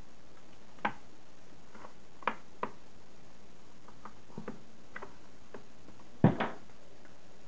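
Scattered sharp plastic clicks and knocks as a laptop's display lid is handled and pried at its edge, with the loudest knock about six seconds in.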